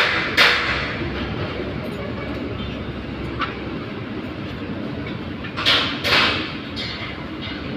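Steady low machinery rumble on a building site, with three short loud hissing bursts, one about half a second in and two close together near six seconds in.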